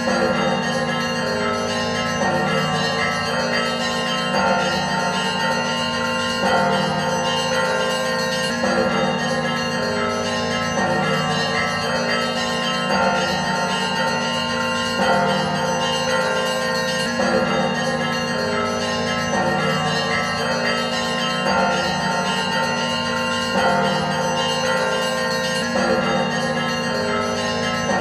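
Church bells ringing in a continuous dense peal, many bells sounding together. A fresh round of strikes comes about every two seconds.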